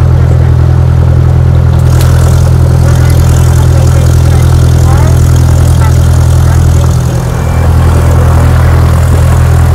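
Cessna 172's piston engine and propeller, a loud steady drone heard inside the cabin. The drone dips briefly about seven seconds in.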